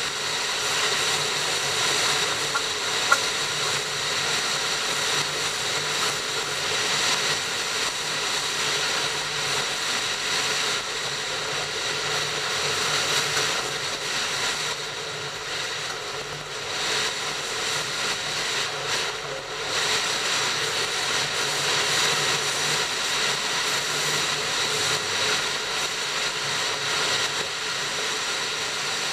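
Steady running noise of a moving train heard from the front of the train: a continuous rushing rumble with faint steady tones in it. A single sharp click comes about three seconds in.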